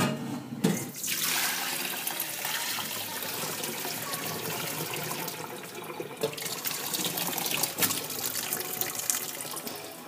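Water running steadily from a kitchen tap into a sink, with a sharp knock at the start and a few light clicks.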